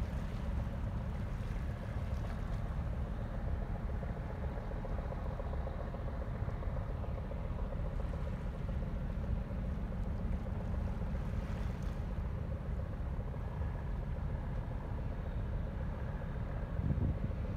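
Steady low rumble of a motor barge's engine under way on the river, with faint steady engine tones above it. Wind buffets the microphone, with a stronger gust near the end.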